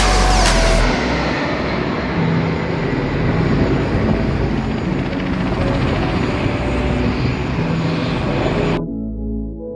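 Jet roar from a low formation of Alpha Jet trainers flying over: a loud, steady rush of noise that cuts off suddenly about nine seconds in, where soft music takes over.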